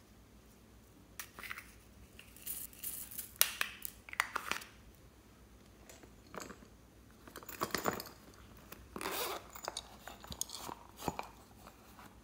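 Hands handling small plastic containers and a silicone coin purse: scattered crinkles, clicks and rubbing, coming in irregular clusters for about the first four seconds and again through the latter half.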